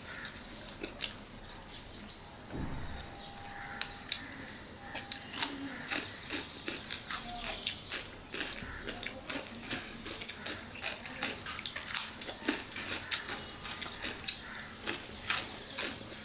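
Close-up mouth sounds of chewing raw cucumber slices: crisp crunches and wet chewing clicks, sparse at first and coming thick and fast from about five seconds in.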